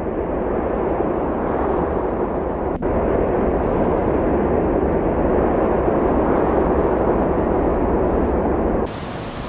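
Strong snowstorm wind blowing across the microphone: a loud, steady rumbling rush. It is broken by a sharp click about three seconds in, and near the end it drops to a quieter, thinner hiss.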